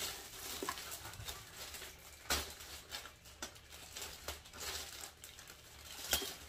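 Clear plastic packaging bag crinkling and rustling as it is pulled off a plastic booster seat, with two sharper crackles, about two seconds in and near the end.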